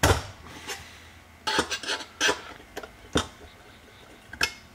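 About half a dozen sharp metallic clicks and clanks at uneven intervals as a stubborn knockout is worked free of a sheet-metal electrical back box with pliers and a screwdriver.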